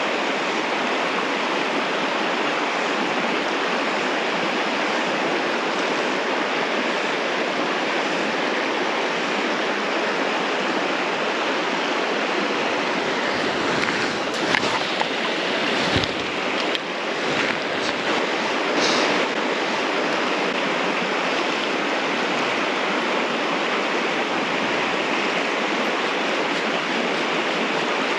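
Shallow river water flowing steadily over stones, a constant rushing with no change in level. A few brief clicks and knocks come about halfway through.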